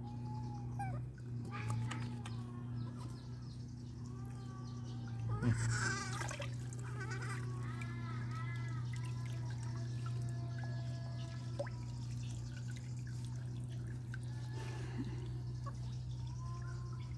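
Baby macaques giving short, high, arching squeaks and coos, repeated in runs, while water splashes and drips in a tub as one wet infant is lifted out; the loudest splash is about five and a half seconds in. A steady low hum runs underneath.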